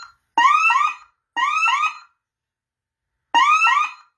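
Honeywell Vista 15P alarm siren sounding the fire warble after a fire panic was triggered. It comes in short bursts of quick rising chirps about once a second, with a longer pause after the second burst.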